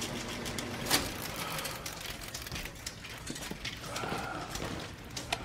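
Film projector running, with irregular sharp clicks and clatter over a steady mechanical hum; the loudest click comes about a second in.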